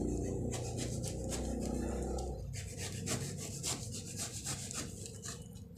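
A cardboard shipping box being opened and handled by hand: rubbing and scraping of cardboard, with a low rumble for the first two seconds or so, then many irregular short scratches and clicks.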